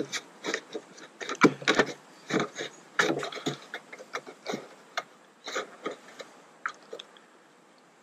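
Worn-out sealant being picked and peeled by hand from the base of a metal vent fin on an RV roof: irregular scratchy scrapes and clicks that thin out near the end.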